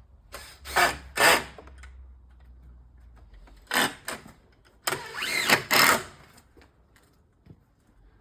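Cordless drill driving screws in several short bursts, the motor spinning up and stopping each time, with the longest run about five seconds in.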